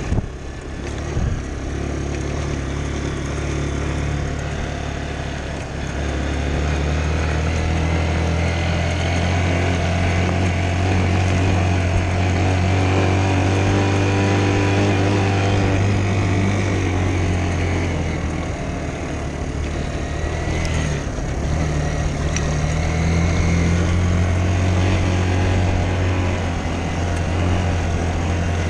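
Dirt bike engine running under way as it is ridden over a dirt track. The engine gets louder about six seconds in and then holds a fairly steady note, with slight rises and dips in pitch.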